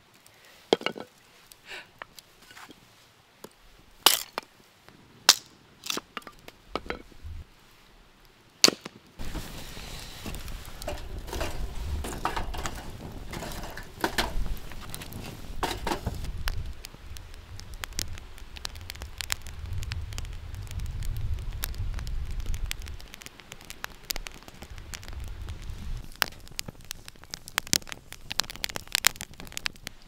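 Hatchet striking firewood on a log stump: several separate sharp knocks as kindling is split. About nine seconds in, a wood fire in a fire pit takes over, crackling and popping with a low rumble underneath.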